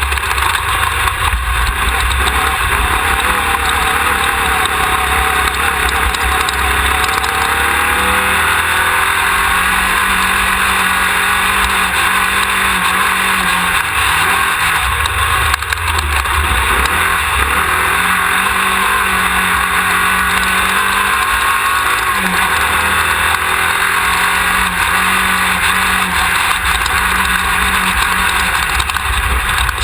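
Off-road race car's engine running hard at speed, its pitch shifting several times with the throttle, under a dense, steady noise of wind and rattle on the rear-mounted camera.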